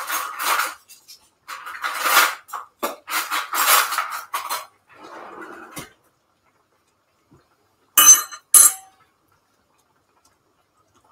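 Kitchen dishes and pots being handled: a stretch of scraping and clattering, then two sharp metallic clanks with a brief ring about eight seconds in.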